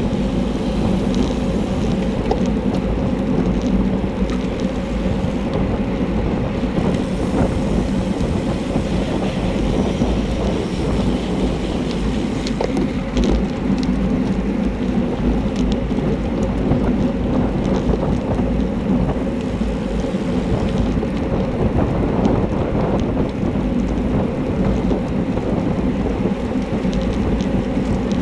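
Steady wind rush buffeting the microphone of a handlebar-mounted camera on a racing bicycle at speed, with a low rumble from the road and tyres.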